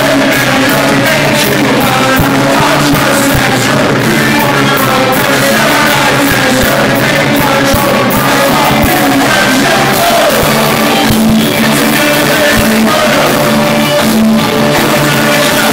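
Ska band playing live at full volume, with singing over a steady beat.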